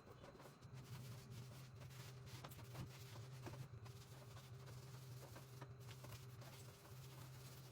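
Near silence: faint scratching and rubbing sounds, with scattered small clicks over a low steady hum.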